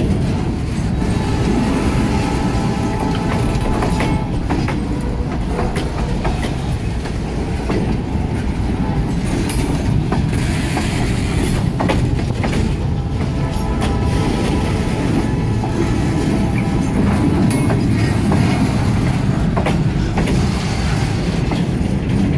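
Loaded freight cars (bulkhead flatcars and a gondola) rolling past close by: a steady rumble of steel wheels with irregular clicks and clanks over the rail joints, and now and then a faint wheel squeal.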